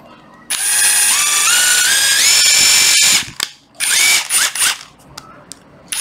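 Hitachi 14.4 V cordless impact driver running with no load. Its motor whine climbs in steps to full speed as the trigger is squeezed, holds for a couple of seconds, then stops. Several short blips of the trigger follow about a second later.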